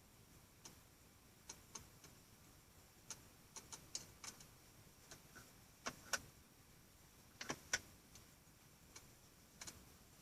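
A series of light clicks and taps at uneven intervals, some in quick pairs, the loudest just after the middle.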